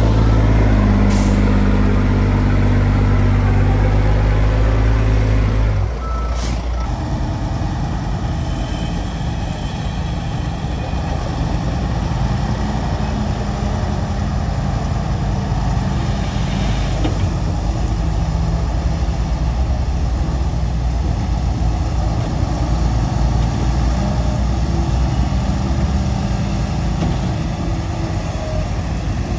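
Heavy diesel engines of bulldozers and dump trucks running: a loud, steady engine note for about six seconds, then a lower, rougher rumble. Short hisses about a second in and again around six seconds.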